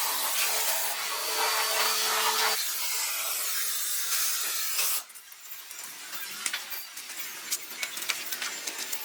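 Steady hissing spray for about five seconds, which cuts off suddenly. Quieter scattered clicks and taps follow.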